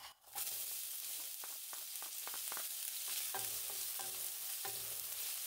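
Chopped red onion sizzling steadily in hot oil in a nonstick kadai, with a wooden spatula scraping and stirring through it in short strokes.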